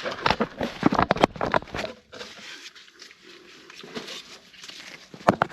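Irregular clicks and knocks of hand tools and metal parts being worked behind a car's wheel well during suspension work, dying down about two seconds in and picking up again near the end.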